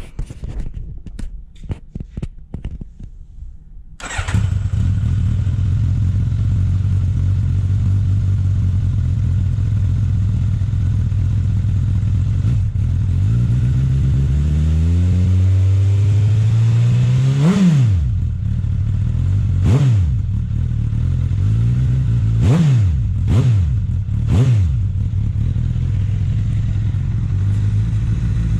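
2016 Suzuki GSX-S1000F's inline-four engine cranking on the starter and catching about four seconds in, then idling. Around the middle it is revved slowly up and let drop. Four quick throttle blips follow before it settles back to idle.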